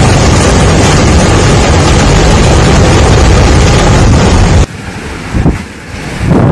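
Storm wind blowing hard over the microphone in a loud, constant rush. About two-thirds of the way through it cuts off abruptly to a quieter stretch of gusting wind.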